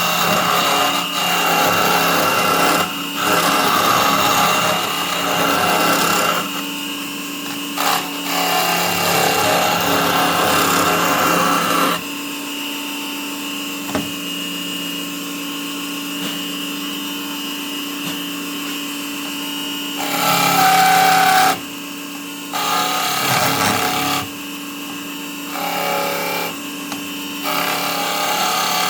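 Wood lathe running with a steady motor hum and whine while a hand tool cuts the spinning wood in rough, scraping passages. The cutting stops for several seconds near the middle, leaving only the motor running, then comes back in short strokes.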